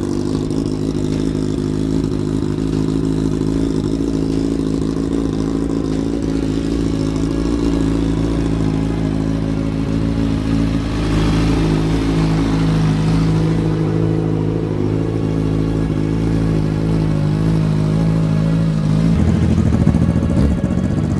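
Kawasaki Z1000 inline-four motorcycle engine running through its exhaust, holding a steady note at one pitch. The sound changes to a different engine note near the end.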